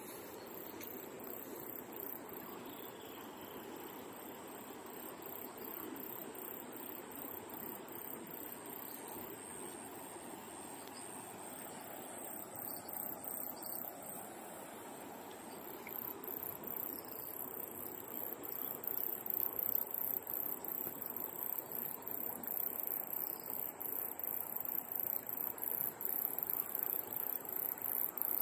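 River water running over shallow stones, a steady rush, with insects trilling in fast high pulses that grow louder a little past halfway.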